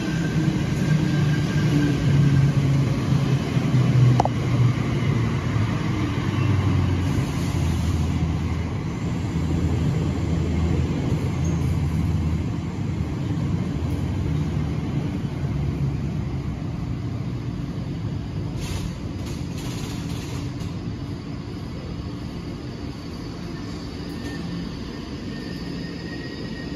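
A Class 345 electric multiple unit running into the platform, its wheels rumbling on the rails. The rumble is loudest as the carriages pass in the first few seconds, then fades steadily as the train slows.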